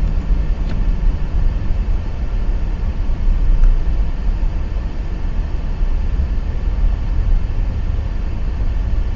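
Wind buffeting the microphone, a loud, low rumble that rises and falls in gusts.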